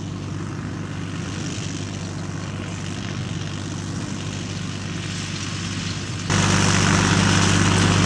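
Older tractor's engine running steadily as it pulls a rotary hay rake. About six seconds in, the sound jumps suddenly to a much louder, fuller run of the tractor and rake heard close up.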